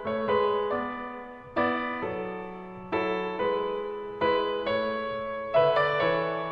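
Slow, gentle piano music: single notes and chords struck one after another, each ringing and fading.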